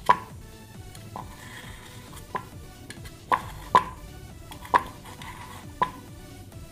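Metal knife clicking against an aluminium idli stand plate as steamed idlis are loosened from the moulds: about seven sharp, irregularly spaced metallic clicks, each with a brief ring.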